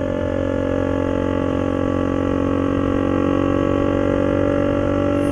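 KTM Duke 200's single-cylinder engine running at a steady cruising speed on the highway, an even drone of many steady tones that stays at one pitch throughout.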